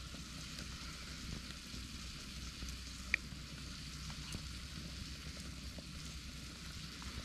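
Wood campfire burning with a steady hiss and scattered crackles, one sharper pop about three seconds in.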